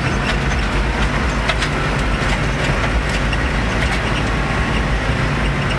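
Farm tractor engine running steadily at a constant speed, with light rattles and clicks over the top.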